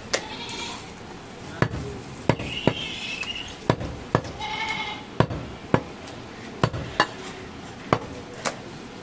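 Heavy butcher's knife chopping goat meat on a wooden block: about a dozen sharp, uneven strikes of the blade through the meat into the wood.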